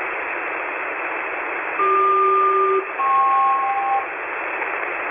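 HF radio static hiss on an oceanic air traffic frequency, with a SELCAL selective-calling signal about two seconds in: two tones sounding together for about a second, a short break, then a second pair of different tones for about a second. The signal is the ground station's coded alert to a particular aircraft's crew that they are being called.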